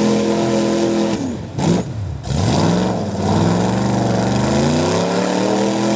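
Mud truck's engine running at high revs while it churns through a mud pit. About a second in the revs drop sharply, then climb back up and hold high.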